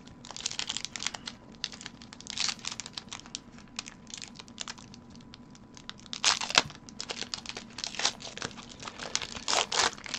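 Foil Pokémon booster-pack wrapper crinkling and being torn open, an irregular run of crackles with the loudest burst about six seconds in.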